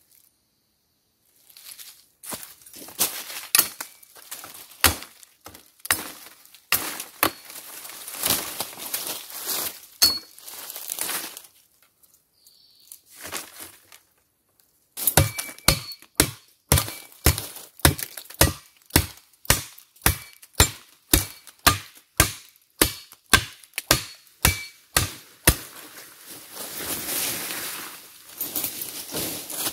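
A metal blade chopping into wood or plant stems, about two strokes a second for some ten seconds in the middle, each stroke with a brief metallic ring. Before that come scattered knocks and rustling, and near the end a stretch of rustling in brush.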